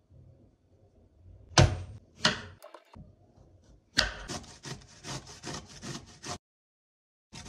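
A courgette being grated on a stainless steel grater into a glass bowl: quick rasping strokes, about four a second, that stop abruptly and start again near the end. Two sharp knocks come before the grating.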